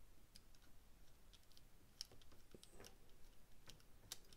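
A few faint, scattered clicks of a screwdriver turning a small screw into a metal knife handle.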